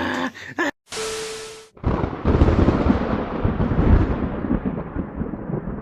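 A brief burst of hiss with a faint steady tone, then about two seconds in a loud, deep rumbling boom that slowly dies away over the next four seconds.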